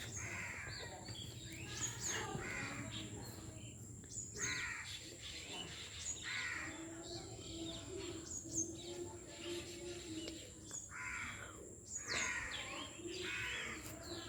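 Crows cawing, harsh calls repeated every second or two.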